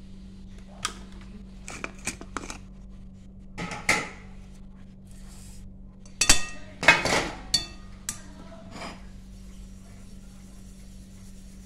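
A metal mesh sieve and a blender jar being handled while freshly ground grain powder is tipped out and sifted onto a plate: a series of clinks and knocks, loudest as a clattering cluster a little past the middle. A steady low hum runs underneath.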